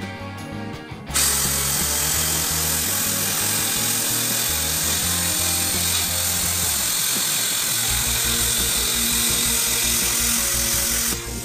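Hand-held plasma cutter cutting through metal: a loud, steady hiss of the arc that starts abruptly about a second in and stops just before the end, over background music.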